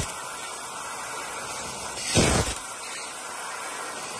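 Fiber laser cutting head on sheet steel: steady hiss of assist gas from the nozzle, with a louder half-second blast a little past the middle as the head cuts one of a row of small holes.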